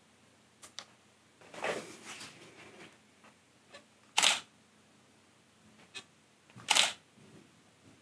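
Canon 750D DSLR shutter firing twice, about two and a half seconds apart: once about four seconds in and again near seven seconds. A few faint clicks and a softer sound come before the shots.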